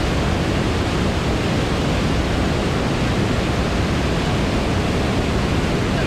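Whitewater of a steep creek pouring over a rock ledge: a loud, steady, unbroken rush of water.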